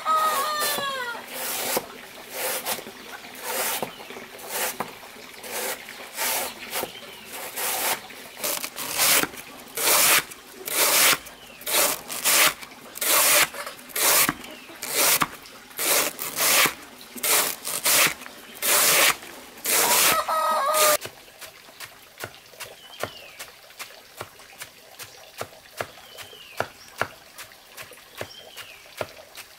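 A large knife chopping through a banana stem onto a wooden board, a crisp stroke every half second or so, then fainter, quicker cuts after about twenty seconds. A chicken clucks near the start and again around twenty seconds in, and short high chirps come in near the end.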